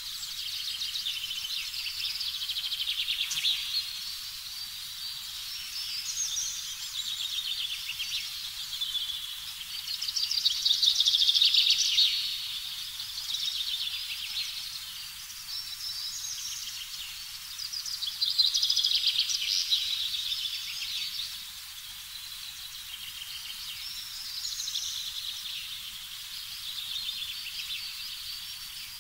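A dense chorus of high-pitched chirping animal calls, swelling and fading in waves every few seconds. It is loudest about a third of the way in and again about two thirds in.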